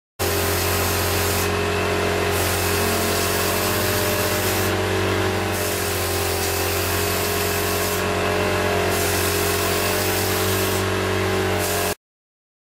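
Air pump running for inflation: a steady motor hum under a loud rushing hiss of air. The hiss briefly thins about every three seconds. The sound cuts in abruptly and stops sharply just before the end.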